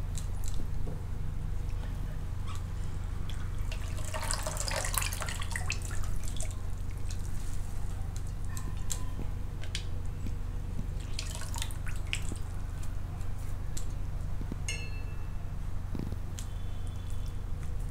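Wet, squeezed grated potato dropping into batter in a steel bowl, with scattered short wet pats and drips over a steady low hum.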